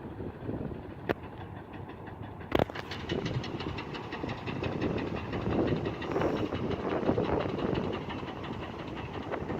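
Construction machinery at work: a sharp knock, then a louder bang about two and a half seconds in, followed by a fast, steady clatter of rapid repeated knocks.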